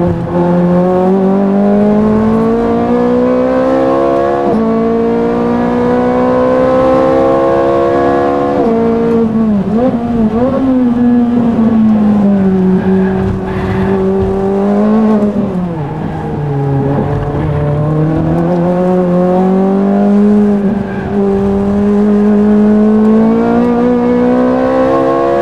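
A Ferrari racing car's engine heard from inside the cockpit at full race pace: the pitch climbs hard through the gears and drops sharply at each upshift. Twice the revs fall away with quick jumps in pitch as the driver brakes and downshifts for corners, then climb again.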